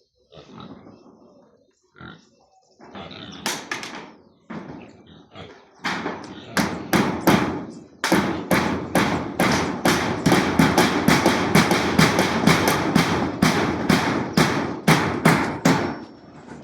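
A fast series of knocks or blows. A few come scattered at first, then about six seconds in they settle into a steady, loud run of two to three a second.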